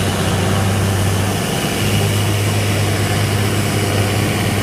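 Large Fendt farm tractor's diesel engine running steadily at low revs, a deep even hum.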